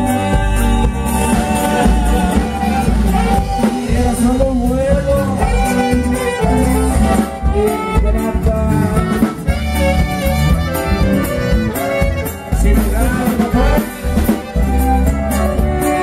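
A conjunto band playing dance music live and loud, with a heavy steady beat in the bass.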